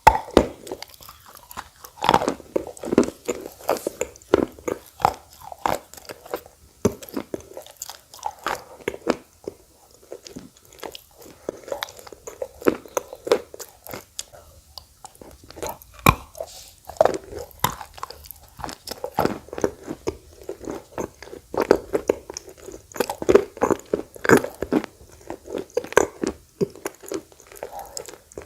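A person biting and chewing crunchy baked clay (red khawa clay balls) close to the microphone: many sharp, irregular crunches mixed with softer chewing.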